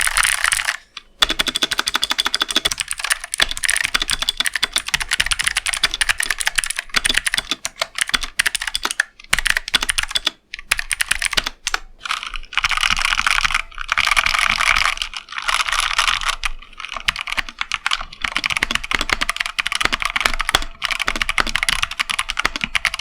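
Fast typing on Zifriend ZA94 mechanical keyboards with Outemu switches, a sound test of the red and blue switch variants: a dense run of key clicks broken by short pauses. The sound changes in character a little past halfway.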